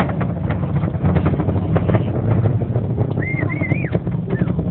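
Deep, crackling rumble of the Space Shuttle's rocket launch heard from miles away. A bird gives a short warbling call about three seconds in.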